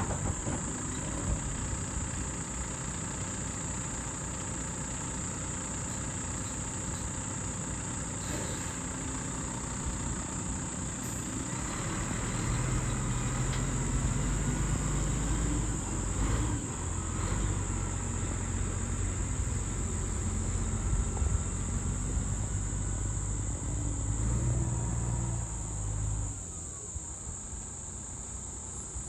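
Tatra 8x8 expedition truck's diesel engine running as the truck crawls slowly over uneven rock. The engine gets louder about halfway through as it works harder, then drops away near the end as the truck pulls away. A steady high drone of insects runs underneath.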